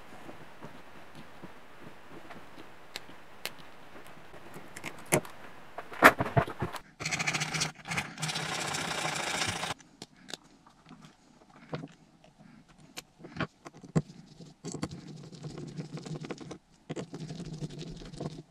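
Small plastic parts being handled and fitted together by hand: scattered light clicks and taps. About seven seconds in there is a louder steady noise lasting nearly three seconds.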